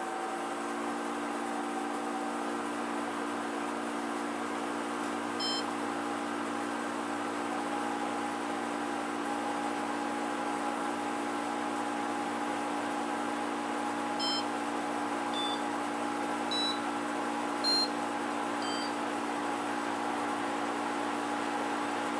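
Samsung AW05B5171TWA window air conditioner running with a steady droning hum of several fixed pitches, the machine noise its owner calls not quiet whatever the fan or cooling setting. Short electronic beeps sound once about five seconds in and five more times in quick succession in the second half.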